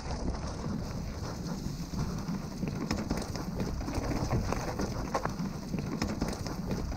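Mountain bike rolling down a rough, rocky dirt trail: tyres crunching over stones, roots and dry leaves, with a steady stream of quick clicks and rattles from the bike jolting over the bumps.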